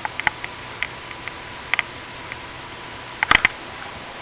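Light handling noise: scattered small clicks and taps over a steady hiss, with a quick cluster of clicks about three seconds in.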